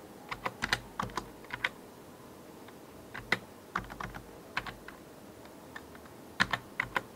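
Computer keyboard being typed on: quick keystrokes in three short bursts with pauses between them.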